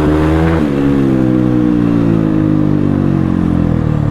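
CX300C motorcycle engine running through an open exhaust with its dB killers removed: the pitch rises briefly, drops sharply about half a second in, then falls slowly as the throttle is eased off.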